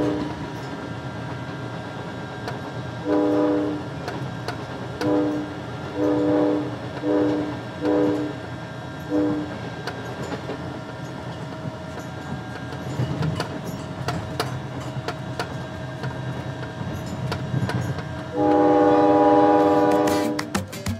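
Steam locomotive whistle sounding a chord of several tones at once. There is a brief toot at the start, then six short blasts in quick succession from about three to nine seconds in, and one long blast near the end.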